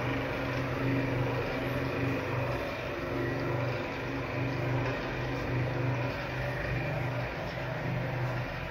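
Vacuum pump of a vacuum column still running: a steady low motor hum that wavers regularly in level, over a mechanical whir.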